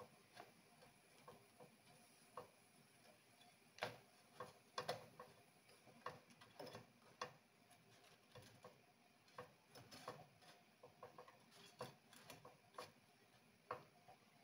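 Metal fork tapping and clicking against a nonstick frying pan as bread rolls are turned over: scattered, irregular light clicks, busiest about four to five seconds in.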